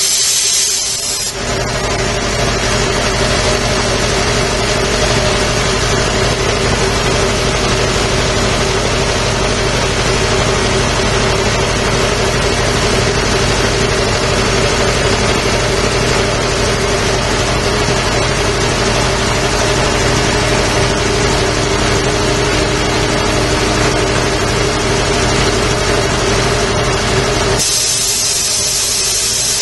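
Quincy QR-325 5-horsepower air compressor running steadily. Its automatic tank drain valve purges twice, each time with a hiss of compressed air and condensed water lasting about two seconds. One purge dies away about a second in and the other starts near the end.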